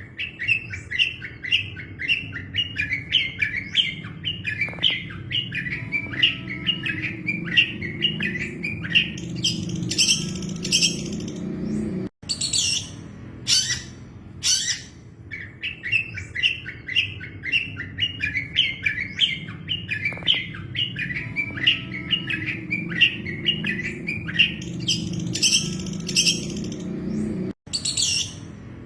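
Long-tailed shrike (cendet) singing: a quick run of short chattering notes that speeds up, then a few louder, higher calls. The same passage repeats after a sudden cut about 12 seconds in, the song looped, over a low steady background hum.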